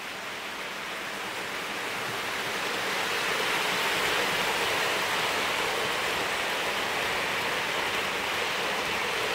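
Hornby OO gauge Class 43 HST model and its coaches running past on the track at about half power, a steady whirr of the motor and wheels on rail. It grows louder over the first few seconds as the train comes close, then holds steady.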